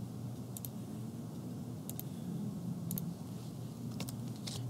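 Computer mouse clicking: about five sharp clicks spaced out, over a faint steady hum.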